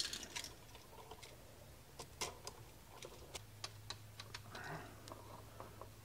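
Faint scattered clicks and ticks of a screwdriver tightening a terminal screw on a USB wall outlet, with small handling noises of the outlet and its wires, over a low steady hum.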